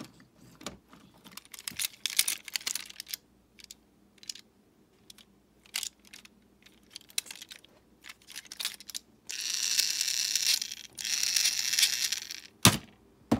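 Plastic Thomas the Tank Engine toy handled and turned over: scattered clicks and rattles of plastic, then two steady stretches of rushing noise, each about a second and a half long, from about nine seconds in, and two sharp clicks near the end.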